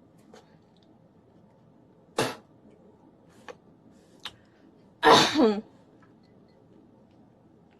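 Two short, sharp vocal outbursts of breath and voice from a distressed woman: a brief one about two seconds in and a louder, half-second one about five seconds in that falls in pitch, with a couple of faint clicks between.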